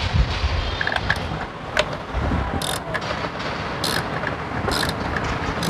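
Ratchet wrench clicking in four short bursts while a bolt on the Chevrolet Spark's plastic intake manifold is loosened, over a steady low rumble.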